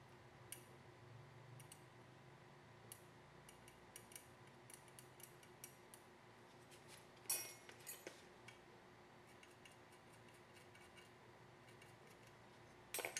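Faint scattered clicks and taps of a small metal hand tool working on an iPhone 6 logic board in its holder, with louder clicks about seven seconds in and again near the end, over a faint steady hum.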